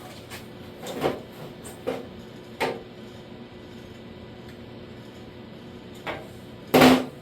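A few light knocks and clunks of things being handled, then one louder, longer clatter near the end.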